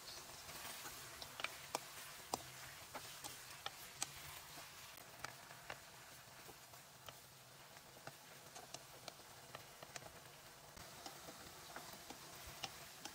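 Mutton pieces frying in oil in a wok: a faint sizzling hiss with scattered crackles and pops, roughly one or two a second.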